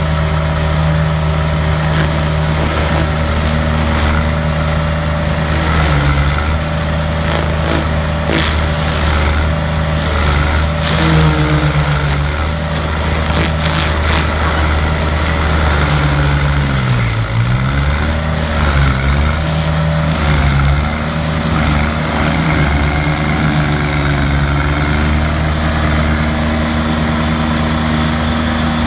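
Remote-controlled stump grinder's engine running steadily at speed, its pitch dipping and recovering a few times as it comes under load, most deeply about two-thirds of the way through.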